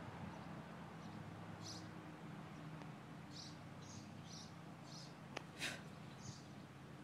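Faint outdoor bird chirps: short, high calls recurring every second or so over a low steady hum. A sharp click and a brief rustle come about five and a half seconds in.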